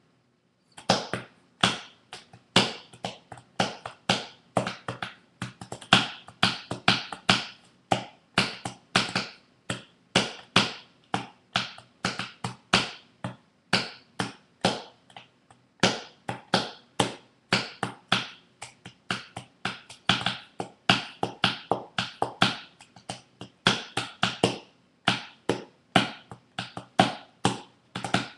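Empty soda bottle struck repeatedly against a knee, played as a hand percussion instrument: sharp taps in a quick, uneven rhythm, with a couple of brief pauses.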